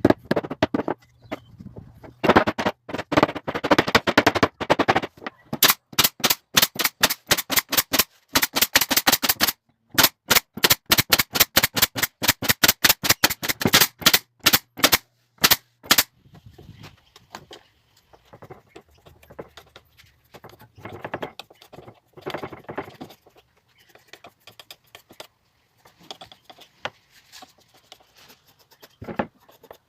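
Pallet-wood boards being nailed down: long runs of sharp strikes, several a second, from about two seconds in until about halfway through, then quieter scraping and handling of the wood.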